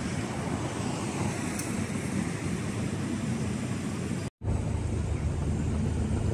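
Steady rumbling noise of the kind heard from street traffic. It cuts out for an instant about four seconds in, and a deeper hum is stronger after the cut.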